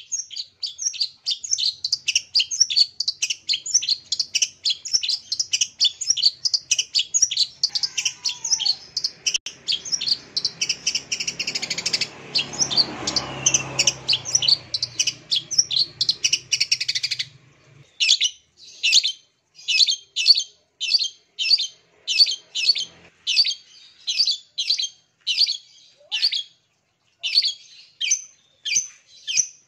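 Long-tailed shrike (cendet) singing: a fast, unbroken chattering song for the first two-thirds, then separate short sharp calls about two a second. A low rumble in the background swells and fades midway through the chattering.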